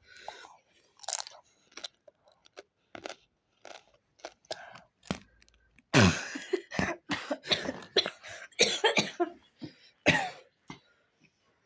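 A person chewing tarhana in short, scattered crunches. About six seconds in comes a loud fit of repeated coughing lasting several seconds, from tarhana going down the wrong way.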